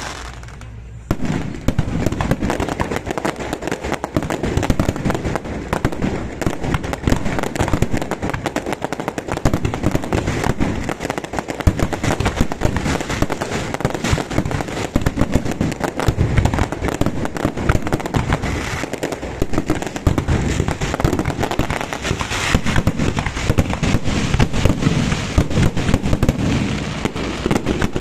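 Aerial fireworks display going off in a dense, continuous barrage of bangs and crackling, starting up again after a brief lull about a second in.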